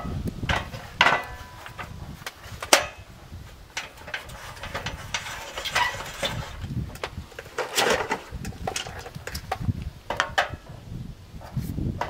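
A hacksaw and short PVC pipe pieces being handled and set down on a wooden workbench top: irregular knocks, clicks and light clatter, the sharpest about three seconds in.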